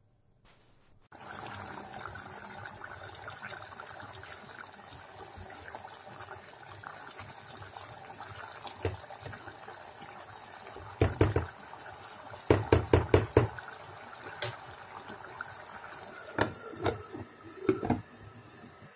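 Water running steadily, as from a tap into a sink. Sharp knocks and clatters of objects being handled come over it, in a burst about eleven seconds in, a denser run a second later, and a few more near the end.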